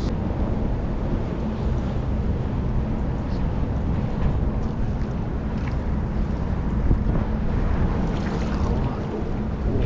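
Wind buffeting the microphone: a steady low rumble of gusting wind, with faint water sounds.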